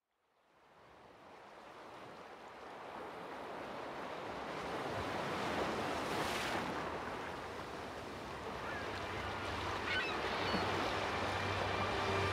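Ocean surf fading in from silence and swelling, a wash of breaking waves, with a few short bird cries about ten seconds in. A low steady music tone comes in during the last few seconds.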